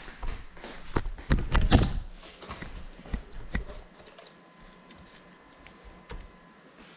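Knocks, taps and rustling from a small FPV drone and its GoPro being handled and set down by hand. The sounds are loudest and most frequent in the first two seconds, then turn to scattered taps, with a faint thin steady tone near the end.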